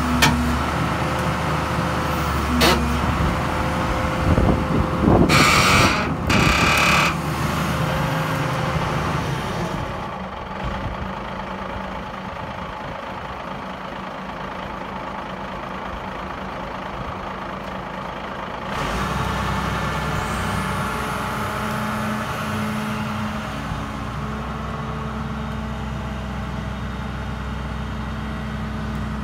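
Dresser 520C wheel loader's Cummins diesel engine running under work, with a couple of sharp knocks near the start and two loud hissing bursts a few seconds in. The engine drops to a quieter, lower note for a while, then picks up again about two-thirds of the way through and holds a strong, steady note.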